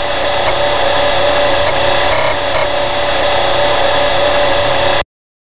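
Emulated TRS-80 floppy disk drive running while Disk BASIC loads: a steady mechanical whir with a hum and occasional sharp head-step clicks, cutting off abruptly about five seconds in as the drive stops.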